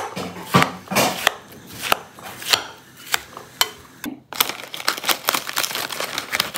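Knife chopping watermelon chunks in a glass bowl, sharp strokes about twice a second. About four seconds in it gives way to a denser crackle of a plastic snack packet being handled.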